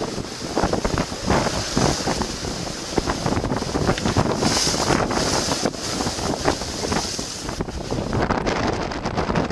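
Strong storm wind buffeting the microphone in irregular gusts, over the rush of a rough sea with waves breaking.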